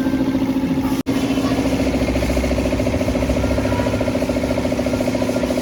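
A motor running steadily with a rapid, even pulse, broken by a very short dropout about a second in.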